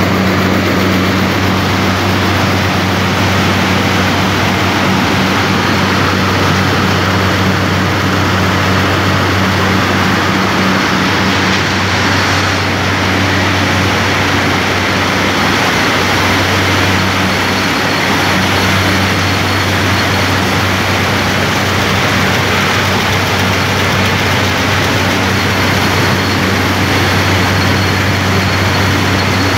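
Peanut cleaning line running: a steady low hum from the vibrating screen machines under a continuous dense rattle of peanuts shaking across the mesh sieves.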